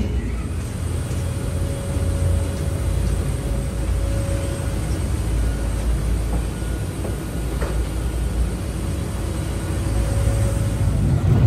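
Steady low rumble and hum in an airport jet bridge and at the door of a parked airliner during boarding, with a faint, steady high-pitched whine above it.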